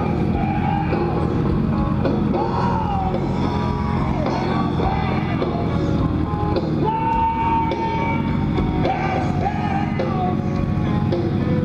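Rock music with a singer, including one long held note about two-thirds of the way through, over the low steady running of a motorcycle engine at walking pace.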